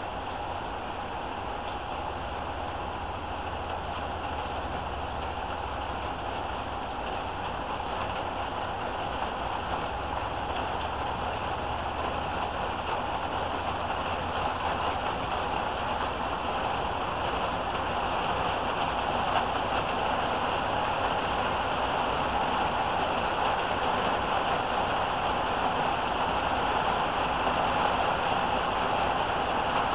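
Heavy rain pouring down in a steady hiss that slowly grows louder.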